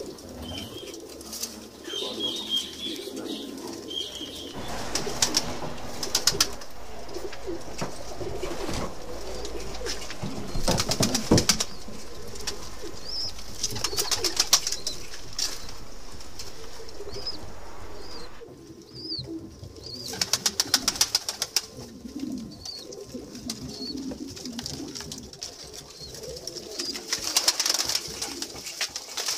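Domestic pigeons cooing, with several short bursts of rapid wing flapping.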